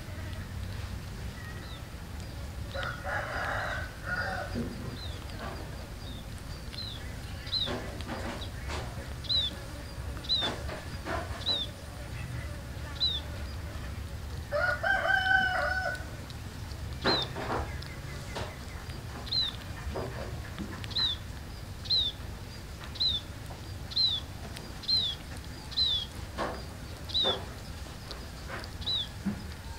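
Birds calling: a rooster crows once, the loudest sound, about halfway through, and there is a weaker call near the start. A small bird gives short, high, falling chirps about once a second through the second half.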